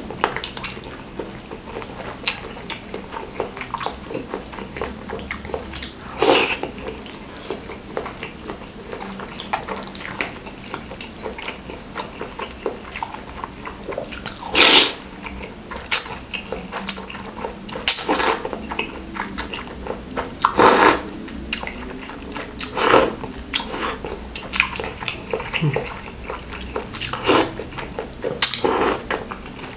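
Close-miked eating: wet chewing, lip-smacking and small clicks of spicy mie ayam noodles and bakso meatballs in sambal sauce, with several short loud slurps of noodles spread through.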